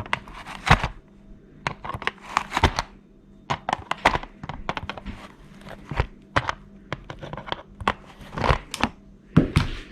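Irregular clicks, knocks and scrapes of hands and pliers working on a wall clock, trying to turn the small brass nut that holds the quartz movement to the dial.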